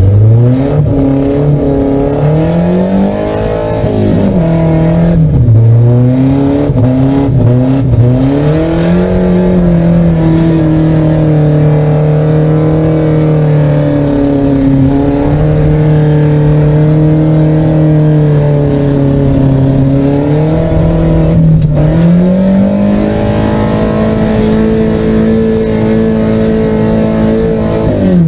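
Volvo drift car's engine running hard on the ice course, its revs rising and falling as it is driven, with sharp drops in revs about four seconds in and again about three-quarters of the way through.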